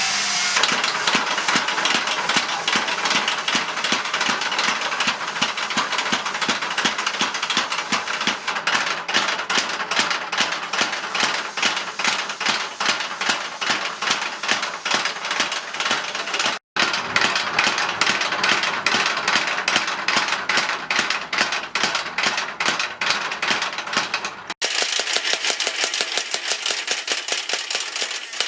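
Rapid, rhythmic hammer blows on metal, steel being forged into tongs on an anvil, several strikes a second, with abrupt cuts twice where the sound breaks off and picks up again.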